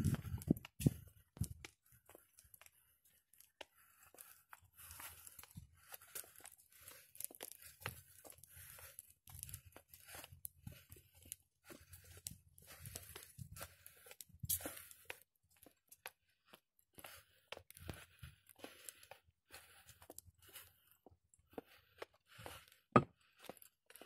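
Faint footsteps of someone walking on a paved path: soft scuffs about once a second with small clicks between them. One sharp click near the end.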